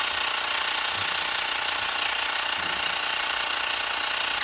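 Xiaomi Mi portable electric air compressor running steadily with a pitched mechanical hum, then switched off abruptly near the end. It is topping up a tyre that already holds air, so it runs only briefly.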